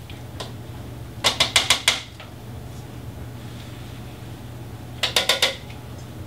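Two quick runs of light clattering knocks, about five each, a second in and again near the end: a utensil knocking against the plastic food processor bowl as it is scraped down and handled. A low steady hum runs underneath.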